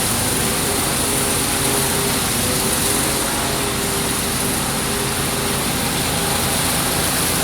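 Hot-water pressure washer running steadily, its engine and pump under an even hiss of water spraying onto concrete, the burner lit and heating the water to steaming.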